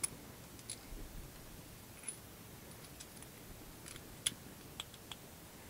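Faint, scattered clicks and small taps of the parts of a backup-sensor hole-punch kit being handled and threaded together in the hands, the sharpest click about four seconds in.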